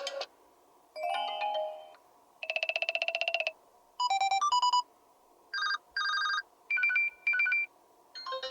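LG K41s smartphone ringtone playing through the phone's speaker: a run of short electronic tone phrases, each about a second long with brief pauses between, one of them a fast warbling trill and others short chiming beeps.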